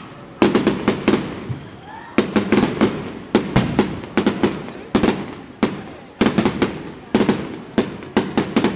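Aerial firework shells bursting overhead in quick succession: sharp bangs, often several close together, about once or twice a second.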